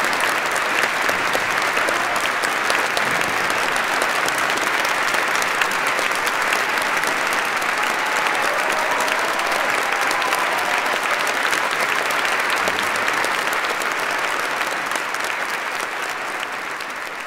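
Audience applauding steadily in a reverberant church, a dense patter of many hands clapping that begins to fade in the last couple of seconds.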